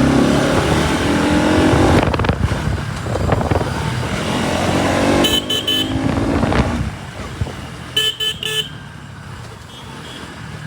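Bajaj Pulsar NS200 single-cylinder motorcycle engine running under way, with wind rush, easing off after about seven seconds. A vehicle horn toots three quick beeps about five seconds in, and three more about eight seconds in.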